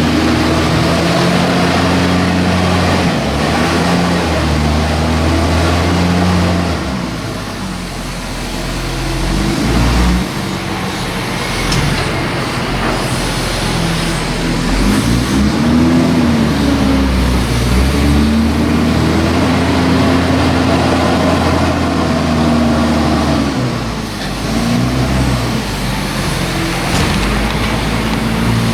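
Tractor diesel engine working, its revs rising and falling as the load changes.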